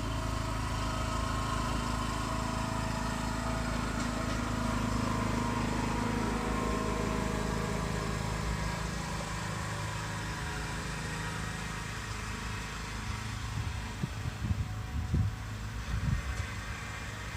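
Lawn mower engine running steadily, its hum weakening after about twelve seconds, with a few low thumps near the end.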